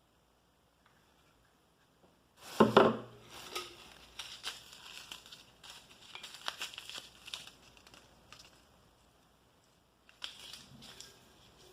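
Plastic packaging crinkling and rustling as it is handled and opened. A loud crackle comes about two and a half seconds in, then a run of smaller crinkles, and a short bout returns near the end.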